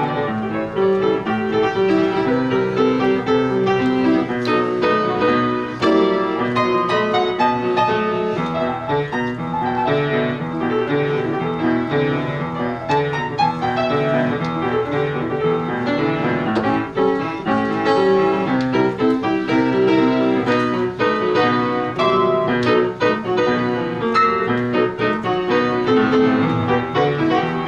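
Solo piano playing a flowing interlude, with many notes and chords sounding together throughout.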